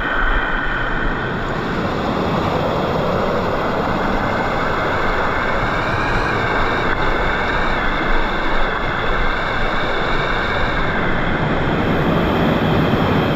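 Steady rushing roar of a waterfall about seven metres high.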